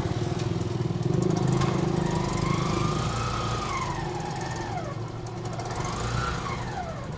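Motor vehicle engine running steadily, with a high tone sliding slowly up and down three times over it.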